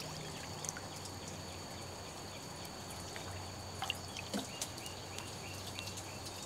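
Hot tub water trickling and dripping, with a few faint short bird chirps about four seconds in.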